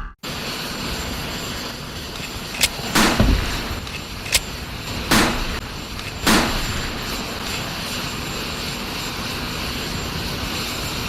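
Steady airfield noise of wind and aircraft engines, broken by a run of sharp cracks from about two and a half seconds in: sniper rifle shot sound effects, three of them louder with a short trailing echo, the last just past six seconds.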